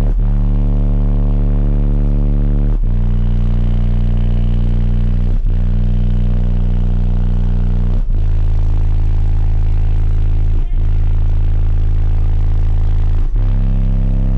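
Sundown Audio subwoofers in a six-door Chevrolet Suburban playing very loud sustained deep bass notes, heard from inside the cabin. The note steps to a new pitch about every two and a half seconds, with a brief dip at each change.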